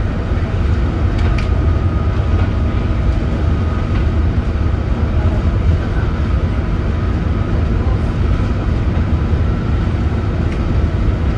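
Leyland Atlantean AN68 double-decker bus under way, its Leyland O.680 diesel engine running with a steady, loud low drone mixed with road noise.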